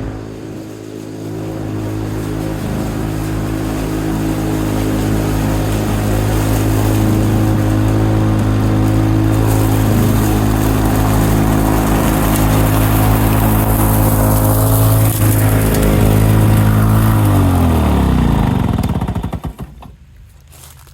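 1987 Lawn-Boy 8073B mower's two-stroke engine running steadily, which the owner judges to run fine despite its hard starting. After about seventeen seconds it is shut off and its pitch falls as it winds down to a stop.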